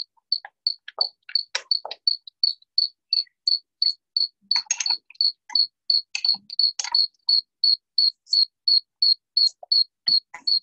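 A steady, high-pitched chirp repeating about three times a second. Scattered sharp metal clicks and taps come from hands working the fittings of a diesel fuel injection pump.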